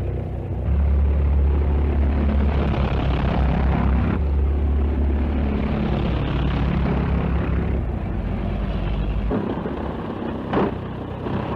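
Early-1930s touring-car engines running fast in a chase, a steady low drone. About ten and a half seconds in, a brief loud burst of noise comes as the cars splash through a stream.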